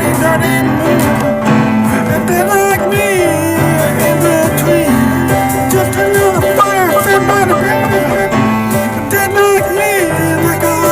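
Electronic music: held bass notes under gliding, wavering melodic tones, with a light percussive beat running through.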